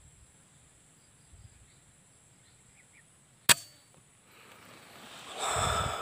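A single sharp shot from a scoped air rifle about three and a half seconds in, a missed shot at a perched dove. A longer, louder noise follows near the end.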